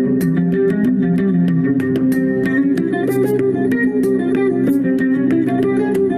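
Background music of plucked guitar with a bass line: steady sustained notes under many quick plucked attacks.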